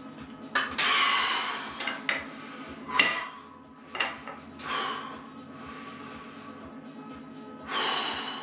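Hard, forced breaths of a man pressing through reps on a plate-loaded lever bench-press machine, with the strongest exhales about a second in and near the end. Two sharp knocks come about three and four seconds in.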